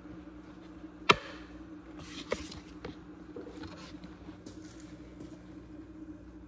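Steady hum of an aquarium air pump with air stones bubbling in the tank. A sharp knock about a second in and a softer one a second later.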